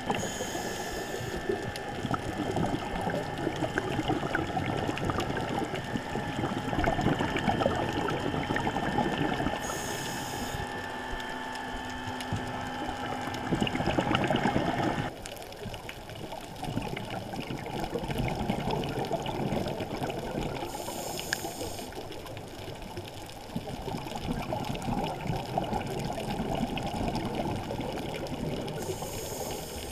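Underwater bubbling and crackling, as heard through a dive camera's housing, with a short high hiss about every ten seconds. The sound drops and changes abruptly about halfway through.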